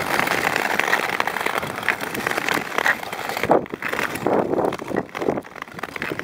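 Ice skates gliding and scraping on frozen lake ice, in irregular surges, with wind rushing over the microphone.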